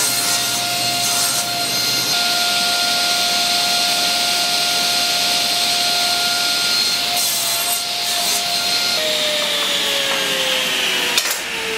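Table saw running with a steady whine as a sled carries a clamped wood block through the blade, cutting grooves. About nine seconds in the saw is switched off and the whine falls in pitch as the blade spins down, with a sharp click near the end.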